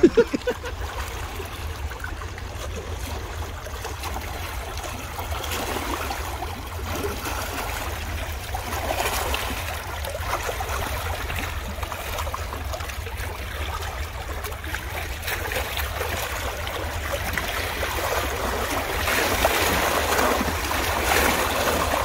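Steady sound of flowing river water, a little louder near the end, over a constant low rumble.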